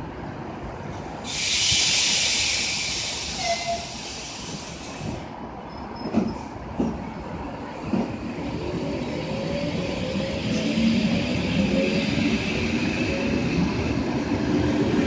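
ED4M electric train pulling away from a station platform. There is a loud burst of air hiss lasting about four seconds, then a few knocks. After that, a motor whine climbs steadily in pitch as the train gathers speed and the carriages roll past.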